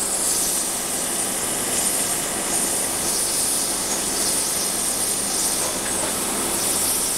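Liquid nitrogen hissing steadily as it boils off around a frosted, foam-insulated nozzle, a loud even hiss strongest in the high range. A faint low hum runs underneath.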